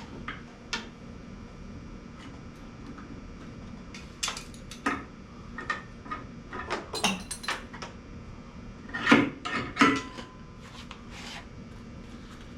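Irregular metal clinks, knocks and scraping of hand tools, a screwdriver among them, prying a stuck air filter out of a tractor's filter box. The loudest knocks come about nine seconds in.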